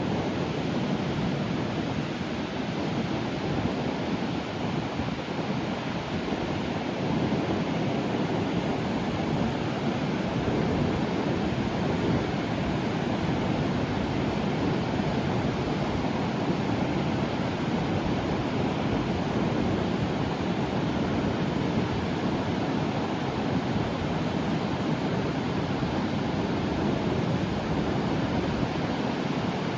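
Sea surf breaking and washing on the shore in a steady, unbroken rush of noise.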